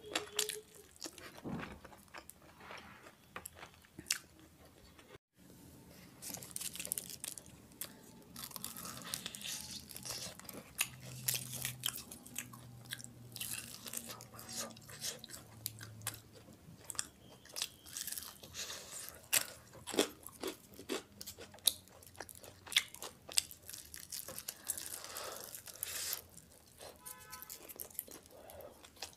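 Biting and chewing fried chicken lollipops: crisp crunches and chewing, in irregular bites throughout.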